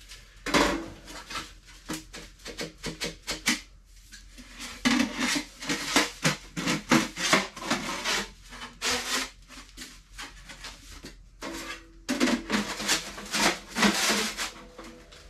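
Sections of a sheet-metal nesting stovepipe being handled and slid into one another, metal scraping and clanking in a dense run of short strokes. There are three busy stretches, with a quieter pause about two-thirds of the way through.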